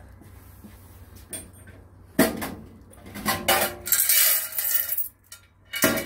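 Small metal objects clinking and clattering in a few short bouts, starting about two seconds in.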